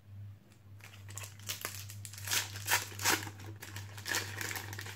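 Foil Panini FIFA 365 card packet being torn open and crinkled by hand: a run of crackling rustles that starts about a second in and is loudest in the middle and near the end.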